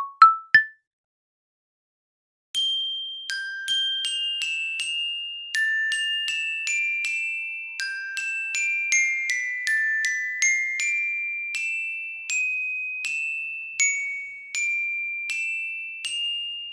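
Background music: a slow melody of single bright, bell-like notes in a glockenspiel or music-box style, each ringing and fading. A short rising run of notes at the very start, then about two seconds of silence before the melody begins.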